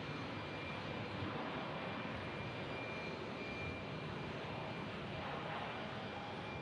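Boeing 737 MAX jet engines running steadily as the airliner rolls along the runway: an even rushing jet noise with a faint steady high whine.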